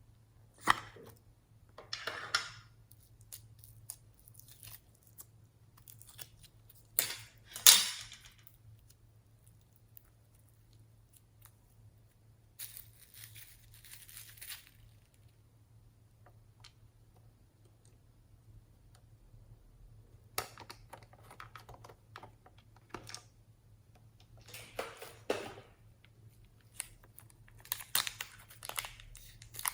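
Plastic packaging being crinkled and torn in short, scattered bursts with quiet gaps between, the loudest about eight seconds in.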